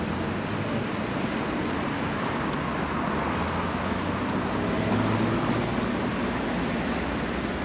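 Steady roadside traffic noise from cars on a street, swelling slightly about five seconds in.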